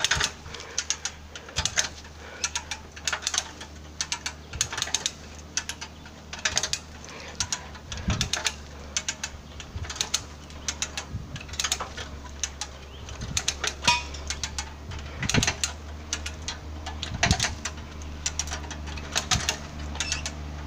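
Footsteps crunching on dry leaves and gravel, with handling clicks on a hand-held camera, making many irregular sharp crackles over a steady low hum.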